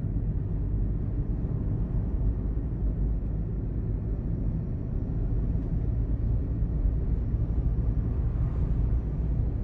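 Steady low rumble of road traffic, with no distinct single events.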